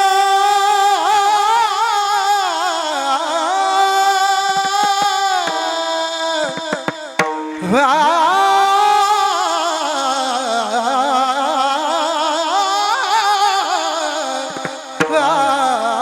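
A man's voice singing long, held, ornamented notes of a Varkari kirtan tune, wavering and sliding in pitch. A few mridang strokes sound around the middle and again near the end.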